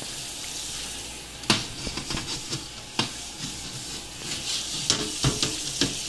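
Tap water running into a kitchen sink as a glass refrigerator shelf is rinsed, a steady hiss with several sharp knocks as the shelf is handled.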